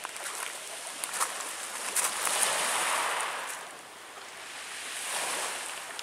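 Small Black Sea waves washing onto a pebble beach, the surf swelling about two seconds in and again near the end, with scattered sharp clicks.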